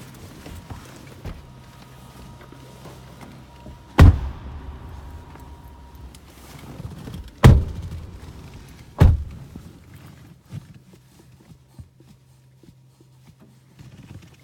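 Car doors being shut: three loud thuds, the second about three and a half seconds after the first and the third a second and a half later. A faint steady high tone runs through the first half.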